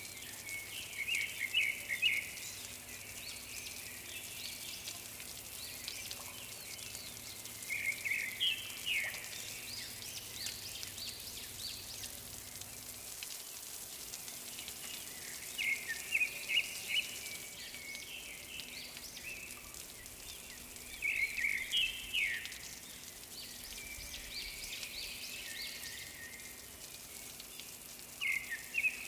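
Birdsong: short phrases of rapid high chirps, each about a second long, recurring about every six to seven seconds over a steady hiss.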